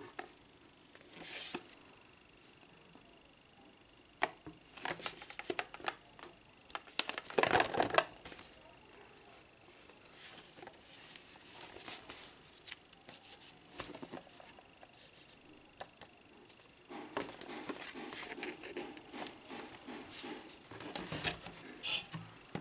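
Hands handling a plastic toy jar and cardboard packaging: irregular rustling, crinkling and light clicks, loudest about seven to eight seconds in.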